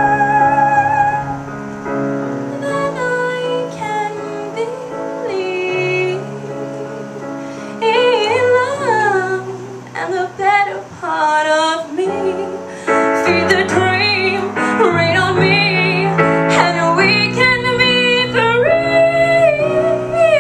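A woman singing a slow ballad with vibrato on long held notes, over instrumental accompaniment.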